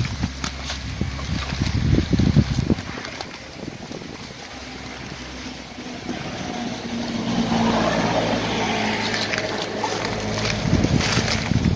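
A boat engine running steadily, fading out after about three seconds and coming back louder from about six seconds in. Close rustling and clicking of wet leaves and fishing net being handled runs under it.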